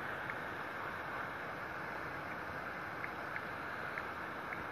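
Heavy thunderstorm rain pouring steadily, a dense even hiss, with a few faint ticks of drops striking close by.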